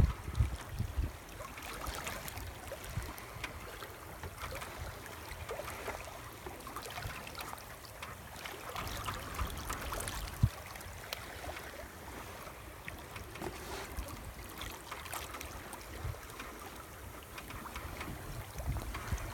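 Water rushing and splashing along a sailboat's hull as it moves through the water, a steady wash with scattered small splashes, one sharper slap about ten seconds in.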